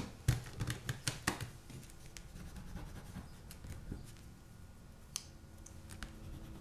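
Caran d'Ache Neocolor II water-soluble wax pastel crayons clicking against the table as one is set down and another picked up, several sharp clicks in the first second and a half. After that comes the fainter scratch of a wax crayon rubbed firmly over hot-press watercolour paper.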